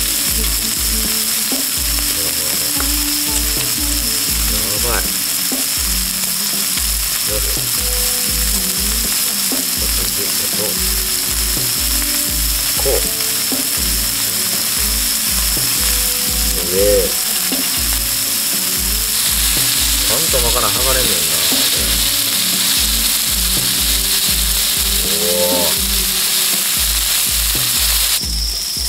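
Bacon-wrapped vegetable rolls sizzling steadily in their fat on a hot multi griddle, with tongs now and then turning them. A low pulsing beat of about two to three a second runs underneath.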